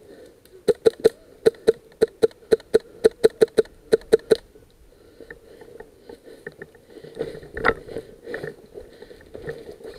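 VFC SCAR-L airsoft electric rifle firing a quick string of about sixteen single shots, roughly four a second, for nearly four seconds. After that come rustling in dry brush and a few lighter knocks.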